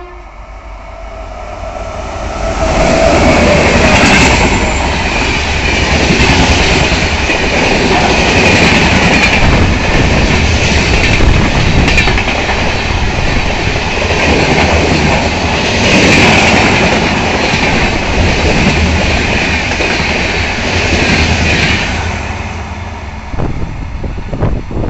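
Navjeevan Express passenger train with red-and-grey LHB coaches running past at speed, its wheels clattering and rushing on the rails. The sound builds over the first few seconds, stays loud for about twenty seconds as the coaches go by, and falls away quickly near the end as the last coach passes.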